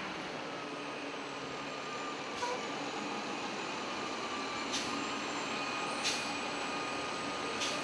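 Scorpion ASL automated side-loader refuse truck's diesel engine idling steadily, with four brief sharp hisses spaced a second or two apart.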